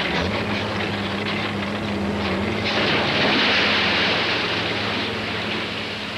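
A heavy engine droning steadily, with a loud, noisy rush swelling from about three seconds in and easing off before the end.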